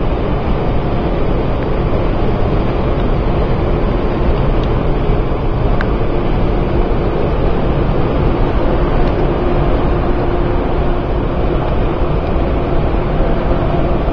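Taipei Metro Bannan line train moving along the platform behind the platform screen doors: a loud, steady rumble, with a faint steady hum through the middle.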